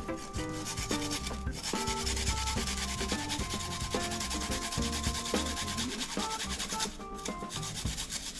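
A garlic clove being grated on a plastic hand grater: a steady rasping scrape of repeated strokes, with short breaks about a second and a half in and near the end.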